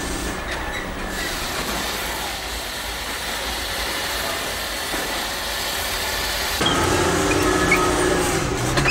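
A heavy diesel container top loader running under load as it lifts a container, a steady engine rumble with hiss. About two-thirds of the way through it grows louder and a steady whine comes in.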